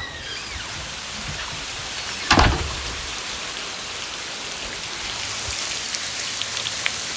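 Hail falling: a steady hiss of hailstones striking surfaces, with sharper individual clicks of stones later on. One brief louder sound stands out a little over two seconds in.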